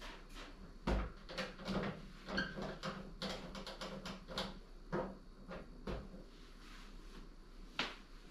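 A string of irregular knocks, clicks and clatters of household objects being handled, over a faint steady low hum. The sharpest knocks come about a second in and again near the end.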